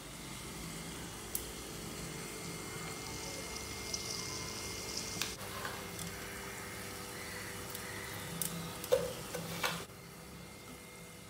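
Food sizzling in hot oil in a pan, a steady hiss with a few sharp clicks of a spoon or spatula knocking the pan as it is stirred. The sizzle drops lower about ten seconds in.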